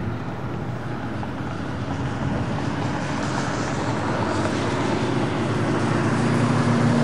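Motor vehicle running: a steady low engine hum under a rushing road or wind noise, growing slightly louder toward the end.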